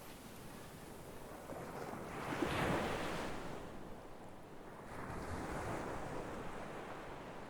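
Sea waves washing onto a shore: one wave surges up about two and a half seconds in and dies away, and a softer second wash follows around five to six seconds in.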